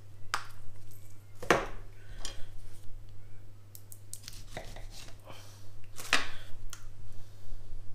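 A knife cutting a lemon in half on a wooden cutting board, with a string of separate knocks and clatters of the knife and kitchen things on the board, two of them louder, about a second and a half in and about six seconds in.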